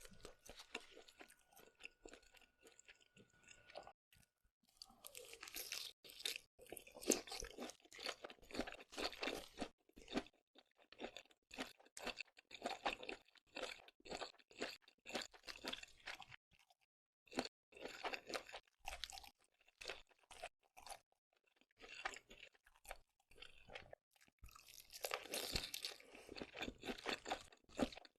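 Close-up chewing and crunching of seafood: dense runs of crackling clicks with a few brief pauses between bites.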